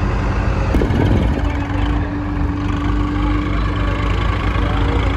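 Heavy diesel machinery engine running steadily, with a constant drone and hum. About a second in, the pitch briefly dips and comes back up.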